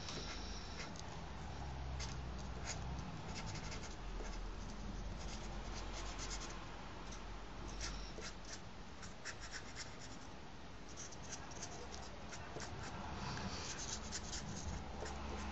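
Felt-tip highlighter scratching across paper in many short back-and-forth strokes as a star is coloured in.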